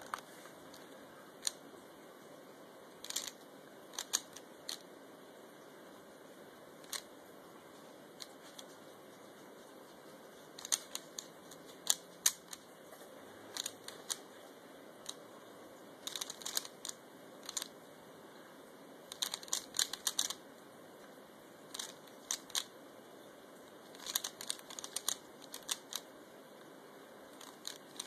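Original Dayan Zhanchi 3x3 speed cube, a modded plastic puzzle, being turned quickly during a timed solve: light plastic clicks, some single and some in quick clusters of several turns. The cube is very quiet.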